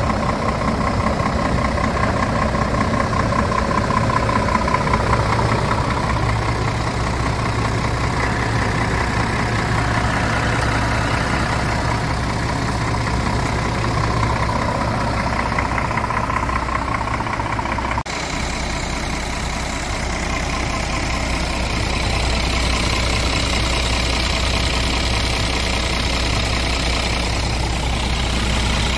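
Scania G450 truck's 13-litre inline-six diesel idling steadily, heard close to the engine, with a faint wavering whine over it for the first two-thirds.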